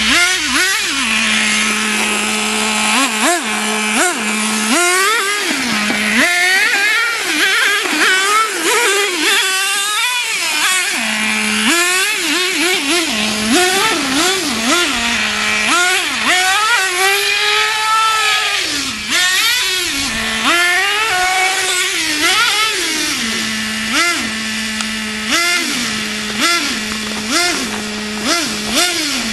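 Traxxas T-Maxx 2.5 nitro RC truck's small two-stroke glow-fuel engine revving up and down over and over as it is driven. Between bursts of throttle it drops back to a steady idle.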